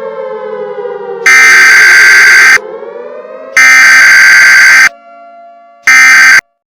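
A siren winding down in pitch, broken by three very loud, distorted alarm blasts. Between the first two the siren dips and rises again. Everything cuts off abruptly after the third, short blast.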